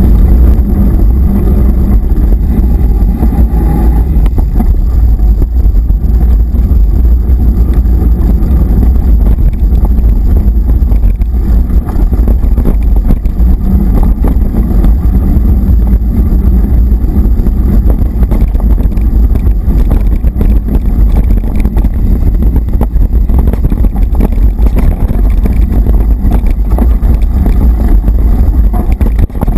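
Mountain bike ridden fast over a dirt forest track, heard through a bike-mounted action camera: a loud, steady rumble of wind and ride vibration on the microphone, with continual small rattles and knocks from the bike over the bumpy ground.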